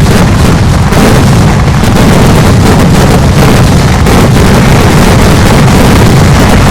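Kerala temple-festival fireworks (vedikkettu) going off in a continuous barrage, the blasts so dense that they merge into one steady, distorted din that overloads the recording.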